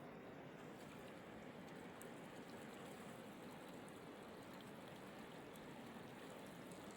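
Faint, steady hiss of river water moving, with a few faint ticks.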